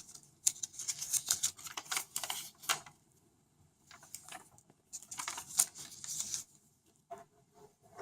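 Unboxing handling: light clicking and rustling as the packaging and its contents are handled, in two bursts of several seconds each with quiet gaps between.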